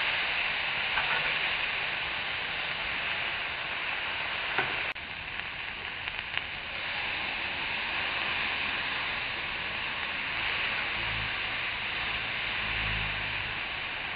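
Pork tenderloins sizzling as they sear on a hot charcoal grill grate: a steady hiss, with a few light clicks.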